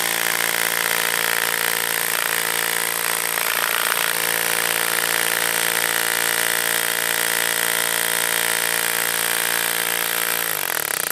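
Kango-type electric hammer drill running steadily at full speed. Its hammer action drives a wooden stake against a plywood board on moulds of wet sand-and-white-cement mix, vibrating the air bubbles and fines to the surface. Its pitch drops near the end as it slows.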